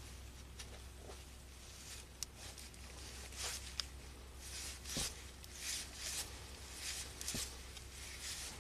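Faint rustling of gloved hands twisting stripped harness wires together, with a few small sharp clicks as the wires and insulation are handled.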